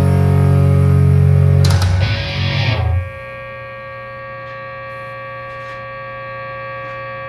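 Distorted electric guitar at the end of a blues-rock song: a loud held chord breaks off about two seconds in with a brief noisy crash, then a quieter chord rings on steadily.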